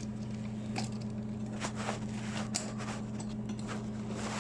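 Steady low electrical hum with faint, scattered clicks and rustles of electrical wire being handled and pushed through metal boxes.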